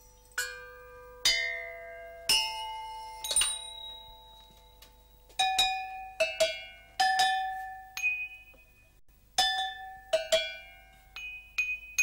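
Assorted hanging metal bells struck one at a time with a stick, about a dozen strikes at different pitches, each ringing and fading, played as a simple tune.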